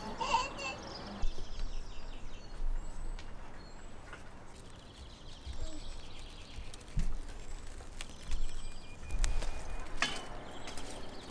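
Birds chirping in the background with short repeated calls, over scattered light clinks and knocks as metal skewers are handled. Near the end, a metal poker knocks and scrapes through charcoal.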